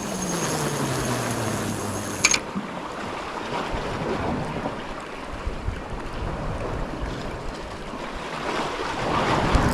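Sea waves washing against a rocky shore, with wind buffeting the microphone. For the first two seconds a thin high whine and a low falling tone sound over it, both stopping with a sharp click.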